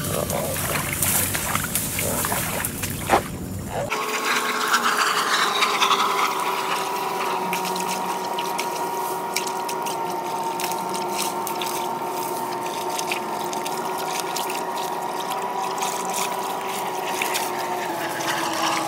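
Wading through shallow swamp water and pulling reeds: splashing, sloshing and the crackle and rustle of reed stems. From about four seconds in, a steady hum of unknown source runs underneath.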